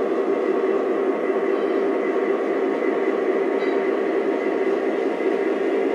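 Operating O-gauge model coal loader running steadily, its conveyor motor buzzing as small coal pieces rattle down into the hopper.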